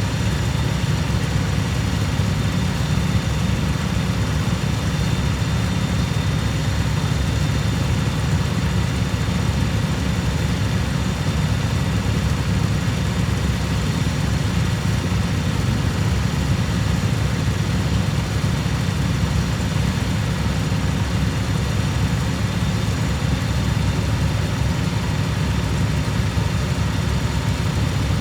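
Cub Cadet lawn mower engine running steadily at a constant speed.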